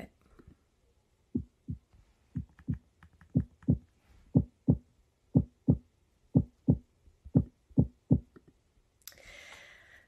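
Recording of a human heartbeat: about seven paired lub-dub beats, one pair a second, starting about one and a half seconds in.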